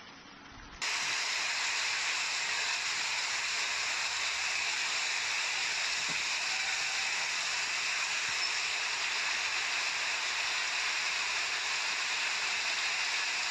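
Steady, even rush of water with no pitch, starting suddenly about a second in and holding level throughout.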